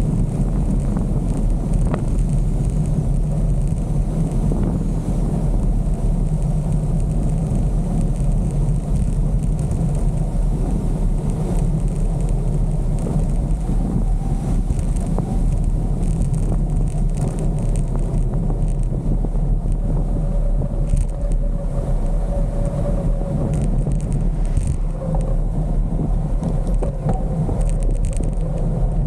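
Steady low rush of wind buffeting the microphone and tyres rolling on tarmac as a road bicycle descends at around 35 mph.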